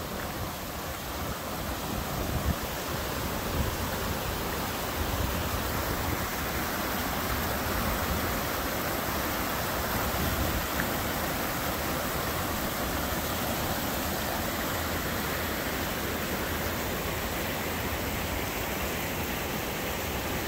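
Steady rush of a mountain creek's water cascading into a pool.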